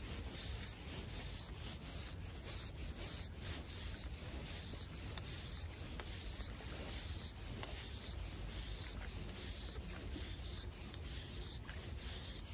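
Dark jacket fabric rubbing and scraping against the camera's microphone: a continuous scratchy rustle dotted with many small clicks, over a low rumble.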